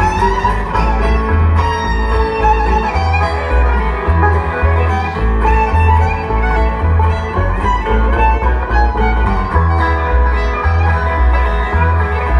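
Bluegrass string band playing an instrumental break with the fiddle out front over guitar, banjo and an upright bass walking line.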